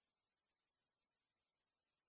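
Near silence: no file strokes or other sounds are heard.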